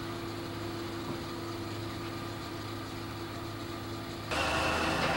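Diesel locomotive engine idling with a steady hum. About four seconds in, the sound cuts abruptly to louder engine running.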